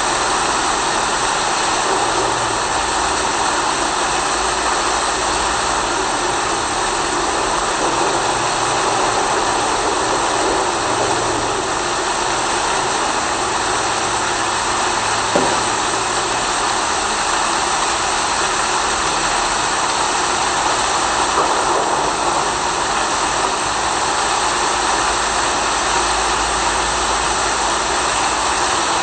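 Steady rain, an even hiss with no break, with a single sharp click about halfway through.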